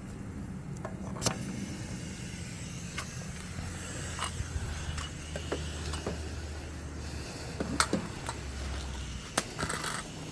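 Sharp clicks and knocks of air-hose fittings and chucks being handled, spaced a few seconds apart, over a low steady hum.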